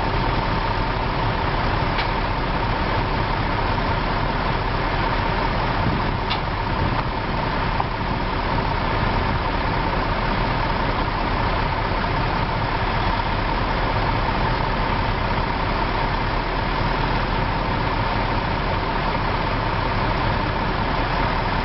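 Heavy diesel truck engines running steadily, from a Terex front-discharge concrete mixer and the heavy wrecker winching it. There is a faint click about two seconds in and another about six seconds in.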